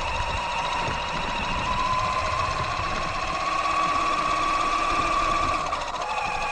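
Electric motor and gear drivetrain of an Axial Yeti XL RC truck whining steadily as it drives over asphalt, the pitch creeping up and then dropping near the end as it slows, over a rough low rumble of tyres on the road.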